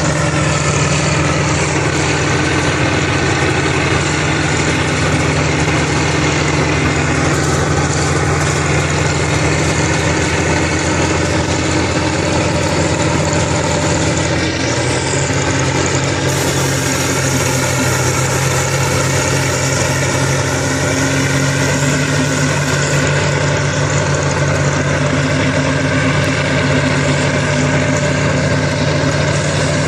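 Diesel engines of large Kirovets articulated tractors running steadily, a deep even drone whose pitch shifts slightly about halfway through, while one tractor sits bogged in mud.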